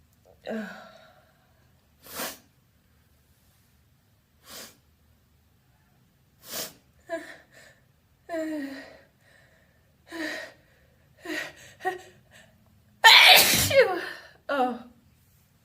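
A person building up to a sneeze with a string of short, gasping, voiced breaths, then one loud, wet, open, vocalized sneeze about thirteen seconds in, followed by a short breath.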